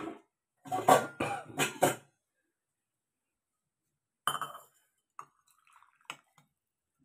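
Small stainless steel bowl handled on a kitchen counter: a burst of metallic clinks and clatter about a second in, more clinks around four seconds in, and a couple of light knocks near the end.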